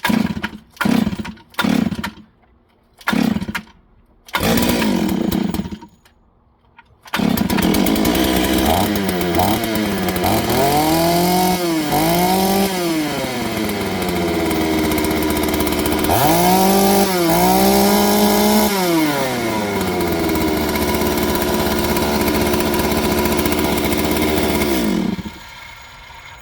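Stihl-clone two-stroke chainsaw being pull-started: a few short bursts as it fires and dies, then about seven seconds in it catches and runs. It is revved up and down several times and then shut off about 25 seconds in.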